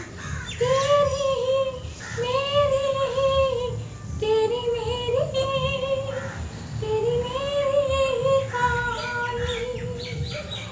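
A woman singing unaccompanied: long held, slightly wavering notes in about five phrases with short breaks between them.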